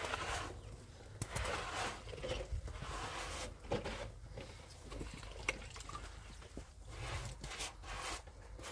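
Wet plaster being worked onto a concrete-block wall with a trowel and float: repeated scraping swishes about once a second, with a few small knocks of the tool.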